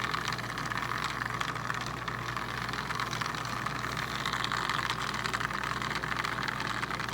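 A small battery-powered toy washing machine running, its little motor whirring steadily as the drum spins a makeup sponge in water. It sounds like a real washing machine on its spin cycle.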